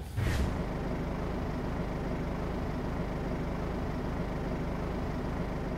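A steady engine drone, like heavy machinery or a vehicle running at idle, with a low even hum.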